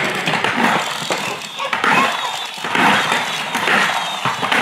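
Friction-powered toy semi truck cab rubbed back and forth on a wooden floor, its plastic wheels rolling and the friction motor's gears whirring in strokes about once a second as the flywheel is wound up.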